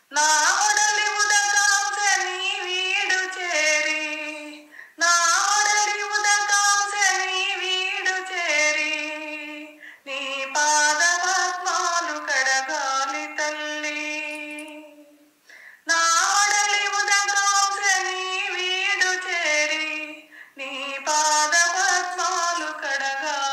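A woman singing a Telugu devotional song to Goddess Annapurna, unaccompanied. She sings in phrases of about five seconds, with short pauses about every five seconds.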